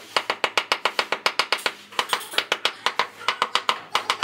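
Quick, sharp knocks of a wooden hammer handle butt on glazed ceramic floor tiles, about six or seven a second in short runs with brief pauses. The tapping seats the tiles level into the sand-and-cement mortar bed.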